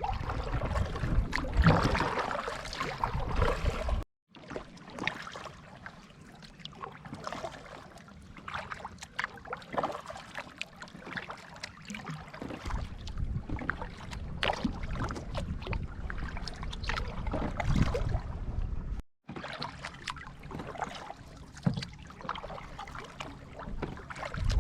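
Kayak paddle strokes: water splashing and dripping off the paddle blades in a steady series of small splashes, with a low rumble at times. The sound cuts out briefly twice.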